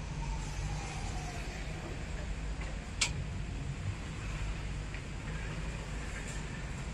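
Street background noise: a steady low rumble, with a faint falling tone early on and a single sharp click about three seconds in.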